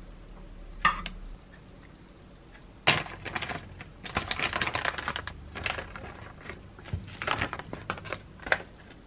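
A metal slotted spoon clinks once about a second in. Then a plastic food pouch rustles and crinkles in irregular bursts while sweet potato cubes are taken out onto a salad, with a sharp tap near the end.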